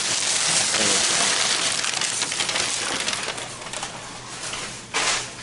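Packaging being handled: a dense, steady crinkling rustle of wrapping material for about four seconds, easing off, then a short sharp crinkle about five seconds in.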